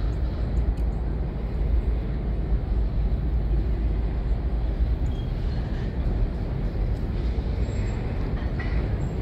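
Freight cars rolling across steel railroad bridges: a steady low rumble.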